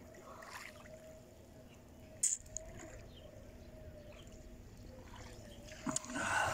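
Small waves lapping and trickling over a pebble beach, with a few short sharp noises, the loudest near the end, over a faint steady hum.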